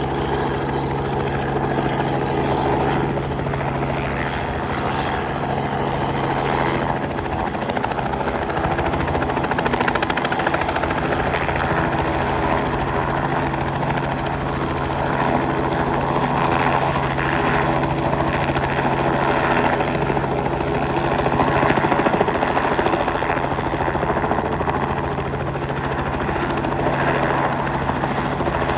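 Robinson R44 helicopter running steadily: a constant engine-and-rotor hum under a dense wash of rotor and engine noise.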